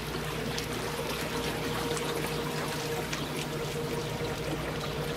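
Water trickling and splashing along the hull of a small boat moving through a canal, over a steady low hum.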